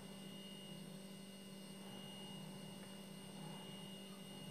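Faint steady low electrical hum, with a thin high whine above it.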